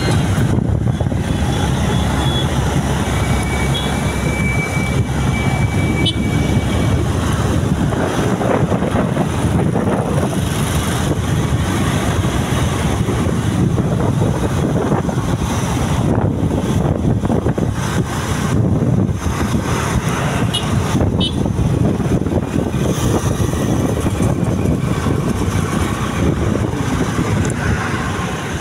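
Steady road and engine noise of a vehicle moving through traffic. A thin high tone sounds for a few seconds near the start.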